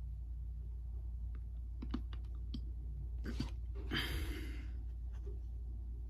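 Faint scattered clicks, with a small cluster a little past three seconds in and a brief rustle about four seconds in, over a steady low hum.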